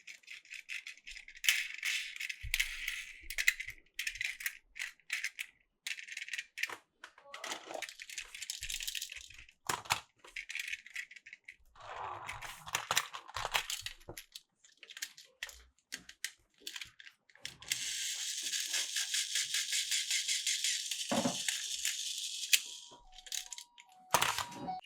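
Plastic Plarail toy trains and track clicking and clattering, with a dense, even rattle for about four seconds late on, like a battery-powered toy train running along the plastic track.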